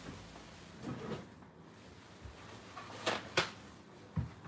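A few scattered kitchen handling sounds: short knocks and rustles about a second in and twice near three seconds, then a soft low thump near the end, like a drawer or cupboard being worked.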